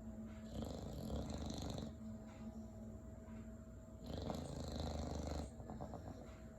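English Bulldog snoring: two long, rasping snores, each about a second and a half, spaced about three and a half seconds apart.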